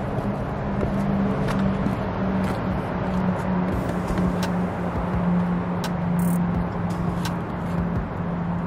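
Car engine idling steadily, with a few faint clicks.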